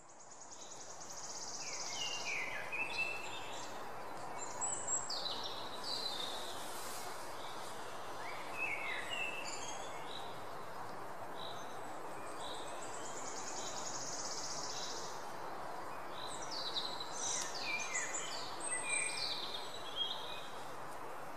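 Several birds chirping and trilling over a steady background noise, the sound fading in over the first couple of seconds.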